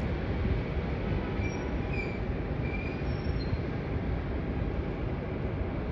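Jet airliner engines running at the airport: a steady rumble with no rise or fall, with a few faint short high whistles a couple of seconds in.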